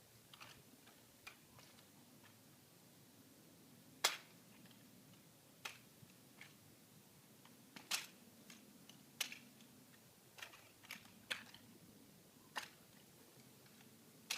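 Drill rifle being spun and handled: a dozen or so sharp, irregular clacks as hands catch and slap it. The loudest comes about four seconds in, with others clustered near eight and eleven seconds.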